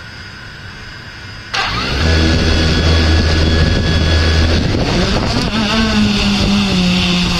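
Yuneec Typhoon H hexacopter's rotors start suddenly about a second and a half in and run steadily at low speed, then climb in pitch near the middle and waver as the drone lifts off.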